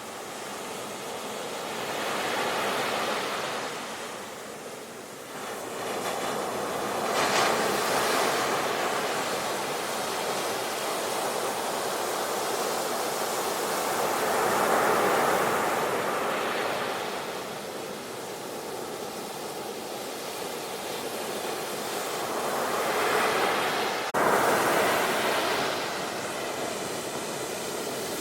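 Sea waves breaking and washing ashore, surging and ebbing in about four swells. A sharp click near the end.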